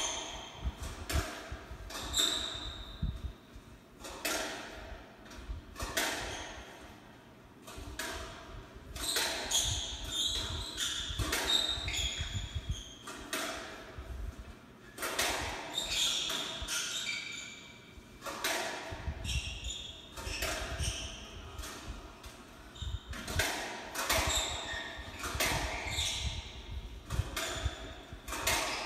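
Squash doubles rally: the ball knocking off racquets and the court walls at irregular intervals, with short squeaks of shoes on the wooden court floor, heard through a television's speaker.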